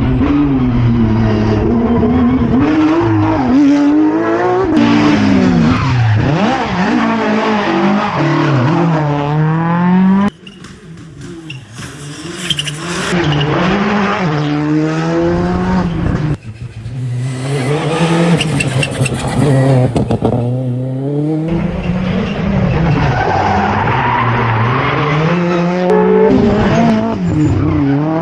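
Rally car engines at full throttle, revving up and falling back again and again through gear changes, with tyre squeal as the cars slide through corners. The sound drops away abruptly about ten seconds in and again about sixteen seconds in, as the next car comes in.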